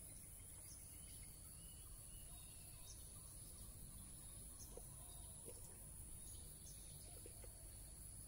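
Near silence: faint outdoor ambience with a steady high-pitched insect drone and a few faint ticks.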